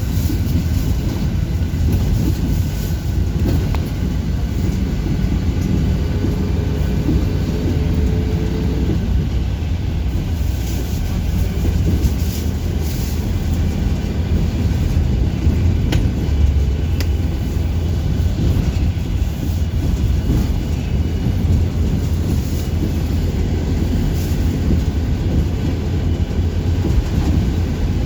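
City bus in motion, heard from on board: a steady low rumble of engine and road noise. A faint whine comes in for a few seconds in the middle.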